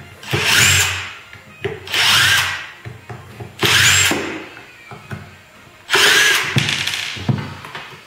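Cordless drill-driver backing screws out of the plastic end plate of a small generator housing, running in four short whirring bursts, each rising and then falling in pitch, with a couple of knocks during the last and longest burst.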